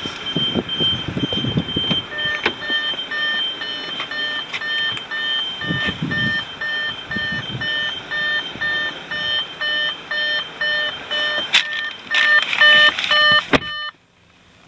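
Audi A4 door-open warning chime beeping repeatedly at an even pace, warning that the ignition is still on with the driver's door open. There are a few low handling thumps early on, and near the end it cuts off abruptly with a click.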